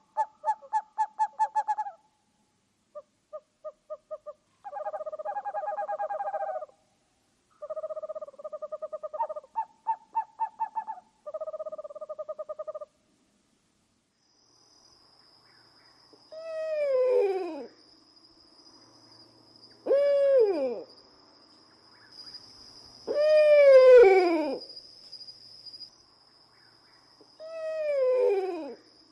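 Owl calls: first, trains of short hoots repeated rapidly in quick series, then four separate drawn-out calls, each about a second long and falling steeply in pitch, spaced a few seconds apart. A steady high-pitched whine runs under the second half.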